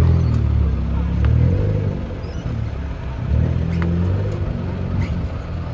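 Fire truck's diesel engine running, a low rumble that swells and eases every second or two.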